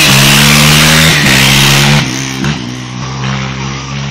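Sport quad's engine at full throttle, loud and steady as it accelerates past, with a shift in pitch about a second in. About two seconds in the sound cuts abruptly to a quieter engine note.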